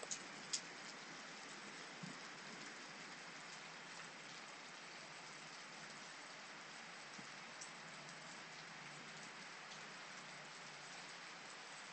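Steady hiss of rain falling during a storm, with a couple of sharp taps near the start and a soft knock about two seconds in.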